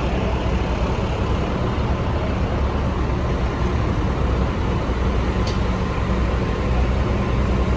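A city bus's diesel engine idling, a steady low rumble, amid street traffic noise.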